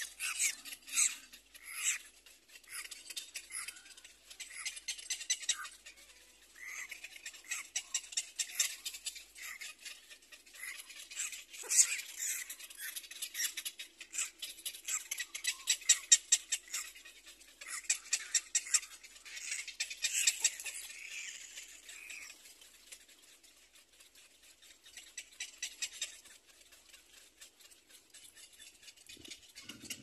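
Cormorant chicks begging for food from a parent at the nest: bouts of fast, high-pitched ticking chitter calls, with a quieter lull near the end.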